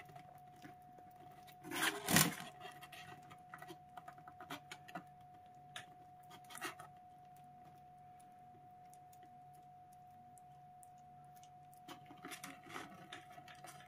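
Small kitten eating soft food off cardboard: faint wet smacking and licking clicks, with one louder brief rustle about two seconds in, over a faint steady hum.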